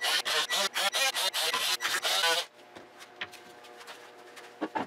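Small handheld power tool rasping against the tabs of a CNC-cut walnut panel in quick back-and-forth strokes, about five a second, stopping after about two and a half seconds; a few light clicks and knocks follow.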